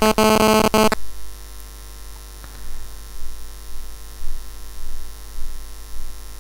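Steady electrical mains hum with a faint buzz. A loud, buzzy electronic tone of several steady pitches cuts off about a second in.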